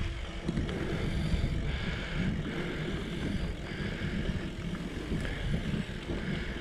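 Wind buffeting the microphone of a bicycle-mounted GoPro while riding, over the low rumble of the tyres rolling on a paved path.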